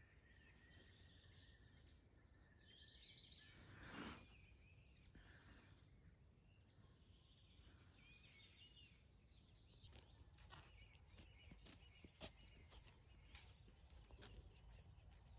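Near silence outdoors, with faint distant birdsong: a few short high chirps and whistles about four to seven seconds in. A run of faint clicks in the last few seconds.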